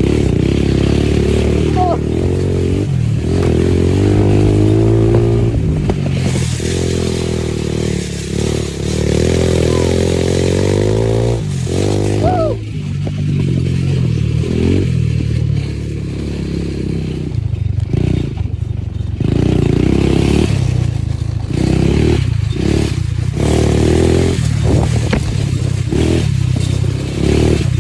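ATV engine running under riding load, its pitch rising and falling repeatedly as the throttle opens and closes, with a rushing noise over it at times.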